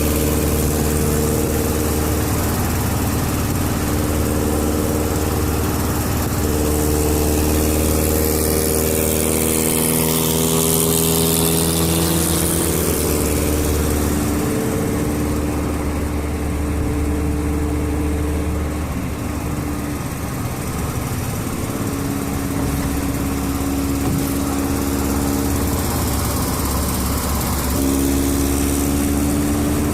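Air-cooled flat-four engine of a 1973 VW Fusca with a 4-into-1 exhaust, running steadily under way as the car is driven. The engine note shifts up and down in steps several times.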